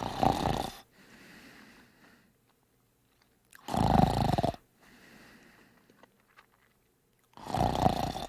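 Snoring: three loud snores about four seconds apart, each lasting just under a second, with a softer breath between them.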